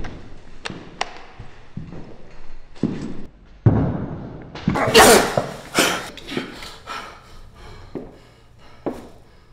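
A series of thuds and knocks, with a sharp hit a little under four seconds in and the loudest, longer burst about a second later, then lighter knocks tailing off.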